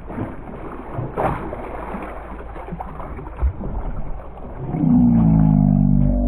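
Hooked largemouth bass thrashing and splashing at the surface as it is scooped into a landing net, over a steady rumbling noise. Near the end a loud pitched sound rises slightly and holds for over a second.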